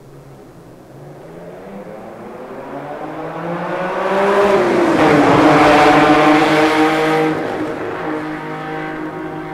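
Lamborghini Countach V12 approaching and passing by, played back from a vinyl sound record. The engine note builds up, drops in pitch about four and a half seconds in as the car goes past, and then fades away.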